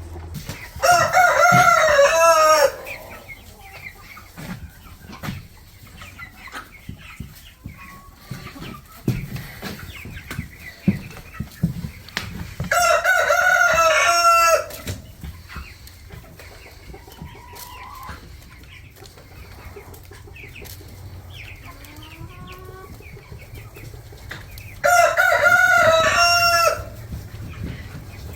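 A rooster crowing three times, each crow about two seconds long and roughly twelve seconds apart, with quieter clucking and calls between the crows.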